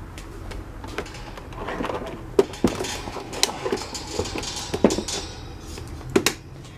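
Lasko 16-inch table fan being handled while switched off: a string of sharp knocks, clicks and rattles of its plastic body and loose wire cage, loudest about two and a half seconds in, near five seconds, and just before the end.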